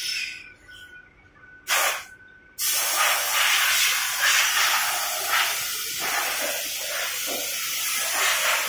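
Compressed air hissing. There is a short burst about two seconds in, then a long continuous blast that wavers in strength.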